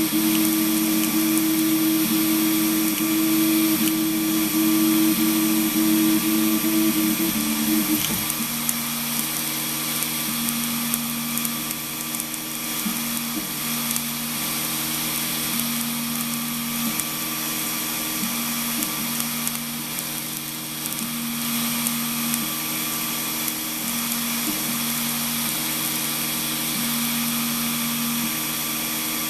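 3D printer printing: stepper motors whining in held tones that jump to new pitches as each move changes speed and direction, over the steady hiss of the cooling fans. The pattern of tones changes about eight seconds in.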